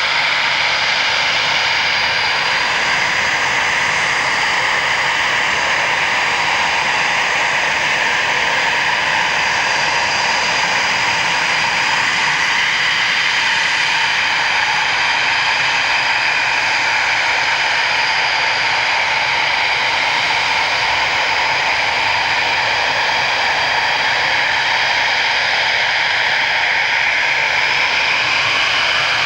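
Eurofighter Typhoon jet engines (Eurojet EJ200 turbofans) running at low power, a steady high whine over a rushing roar that holds an even level with no surge of a take-off run.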